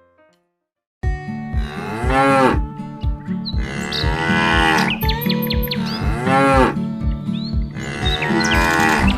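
Cartoon cow mooing four times in long calls that rise and fall, over children's music with a steady beat that starts about a second in.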